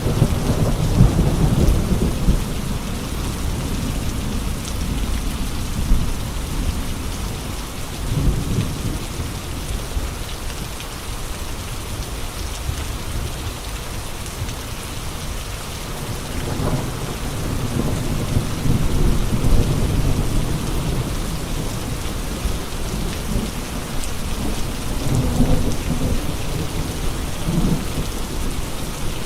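Steady rain with gusty wind: an even hiss of rain, with low rumbling surges that swell and fade near the start, about a third of the way in, and twice more in the second half.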